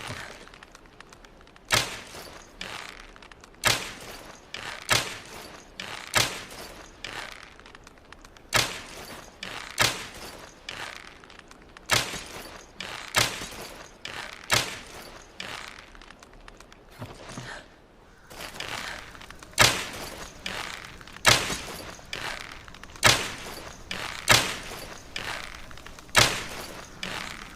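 Longbow being shot again and again: a sharp snap about every one to two seconds, each with a short ringing tail, the snaps getting louder in the last third.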